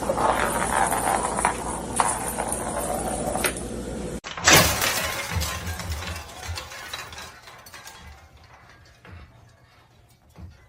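A sudden loud crash about four and a half seconds in, fading away over the next few seconds, after several seconds of busy clattering noise.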